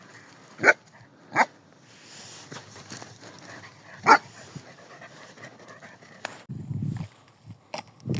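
A dog barks three times: twice in quick succession about a second in, then once more about four seconds in.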